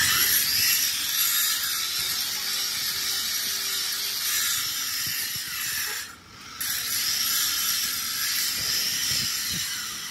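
Harsh, hissing high-pitched metalworking noise in two long stretches, breaking off briefly about six seconds in.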